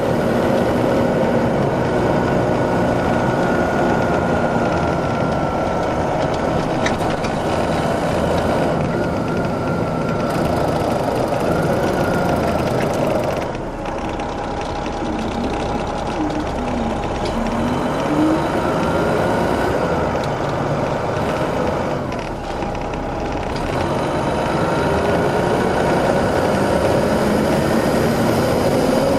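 An MCI D4500 coach's Detroit Diesel Series 60 inline-six diesel idling steadily. The sound eases briefly twice, about halfway through and again about three quarters of the way in.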